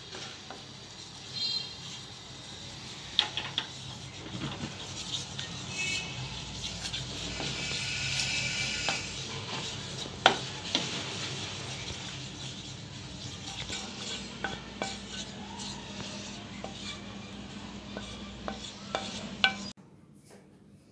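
Sugar and water bubbling into caramel in a stainless steel bowl, with a steady sizzle while a wooden spoon stirs and scrapes, knocking now and then against the steel. The sound cuts off suddenly near the end.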